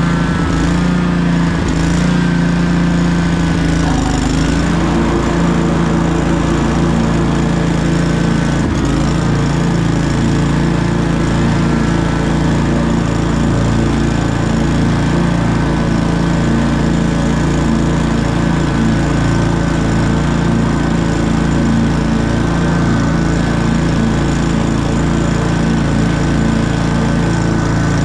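Commercial walk-behind lawn mower's engine running steadily at cutting speed while it mows grass, heard close up from behind the handlebars.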